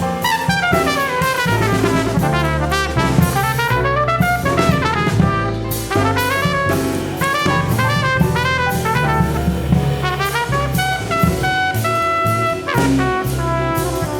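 Jazz quartet of trumpet, piano, bass and drums playing live, with fast runs of notes sweeping down and up over a walking bass and drums. A few long held notes come near the end.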